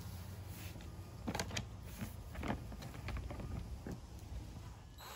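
Light clicks and knocks of the plastic oil-access cover being fitted back onto a Westinghouse iGen2200 inverter generator. Right at the end a cordless drill starts up with a steady whine, driving the cover's screw.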